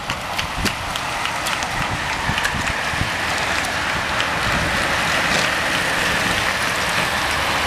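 A pack of racing bicycles passing close by: a rushing whirr of tyres and freewheels on asphalt that grows steadily louder as the bunch streams past.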